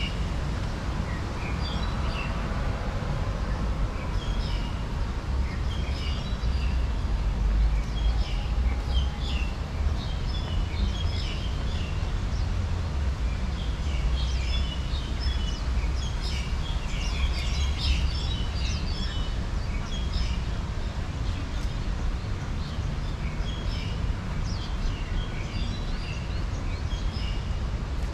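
Small birds chirping and twittering in quick short calls, busiest around the middle, over a steady low rumble.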